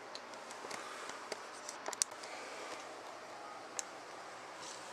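Quiet room hiss with a few faint, sharp clicks and taps from handling. The sharpest click is about two seconds in and another comes near the end.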